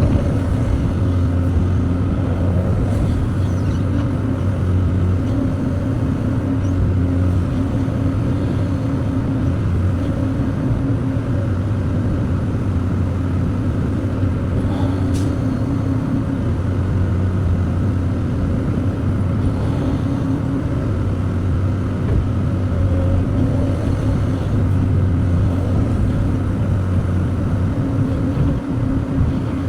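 Diesel engine of an excavator running steadily while it loads a truck, its low note growing and easing every few seconds as the hydraulics take load. A brief tick about halfway through.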